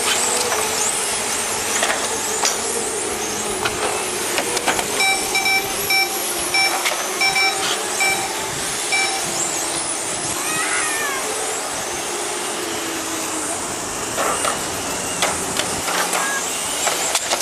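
Electric on-road radio-control cars racing: high-pitched motor and drivetrain whine that rises and falls as the cars speed up and brake, with occasional sharp clicks. About five seconds in, an electronic beep repeats about twice a second for some four seconds.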